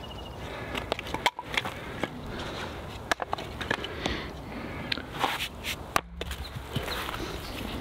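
Scattered light knocks, clicks and scuffs of dry firewood being handled and cut, with footsteps.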